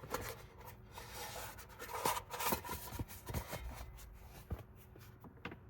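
Close handling noise: rubbing and scraping with scattered light clicks and taps as cables and the lockbox's padding are worked by hand.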